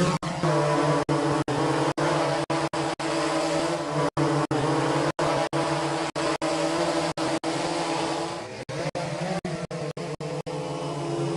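Quadcopter drone motors and propellers buzzing in a steady, pitched hum, broken by many brief dropouts and dipping briefly about eight and a half seconds in.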